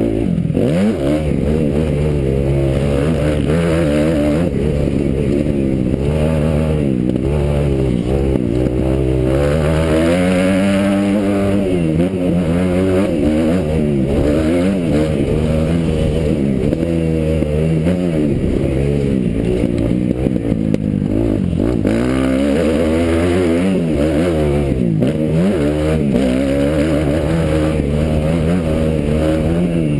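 Kawasaki motocross bike's engine revving up and dropping back over and over as the rider accelerates, shifts and slows through the track, with one long climb and fall about ten seconds in. Heard close from the rider's helmet camera.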